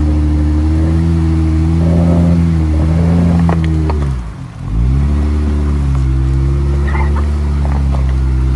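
Jeep Wrangler's engine pulling steadily under load through swamp mud, with a few sharp snaps of brush against the body. About four seconds in the revs drop sharply, nearly dying, then pick back up and hold steady.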